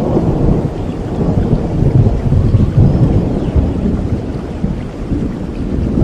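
Thunder rumbling over steady rain, swelling to its loudest two to three seconds in.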